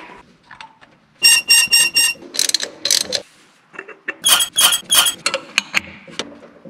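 Brass oil pressure sending unit being threaded into its port on a V8 engine block, making runs of sharp, ringing metallic clicks, about four at a time, then scattered single clicks.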